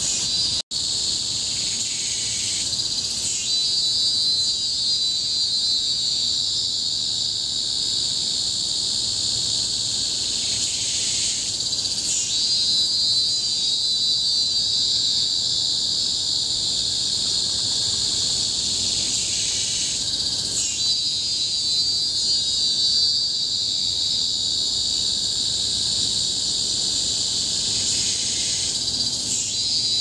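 Loud, continuous, shrill chorus of tropical cicadas, with a stronger call that swells in and holds for several seconds, roughly every eight seconds. The sound drops out for an instant just under a second in.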